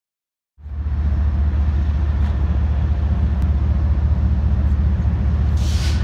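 Diesel freight locomotives running as the train approaches, a steady low rumble that starts suddenly about half a second in. A short hiss comes near the end.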